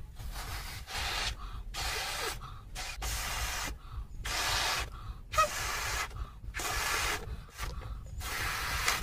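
A red latex balloon being blown up by mouth: about nine hissing puffs of breath, roughly one a second, with short pauses between them as the balloon fills. There is one brief sharp sound about halfway through.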